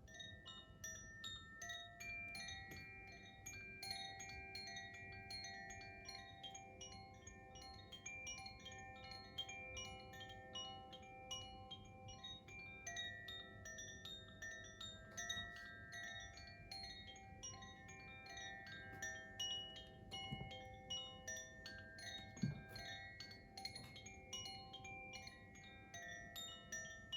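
Koshi chime being gently swayed, its tuned metal rods struck by the inner clapper and ringing in many overlapping tinkling tones. A soft low thump sounds once, about 22 seconds in.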